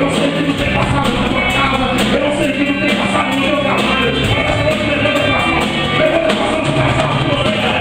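Live gospel worship band playing with singing, the full band and drums keeping a steady beat.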